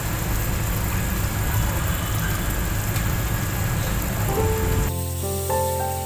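Pot of pork and bamboo-shoot stew at a rolling boil, bubbling steadily. About five seconds in it cuts off sharply and background music with a simple melody takes over.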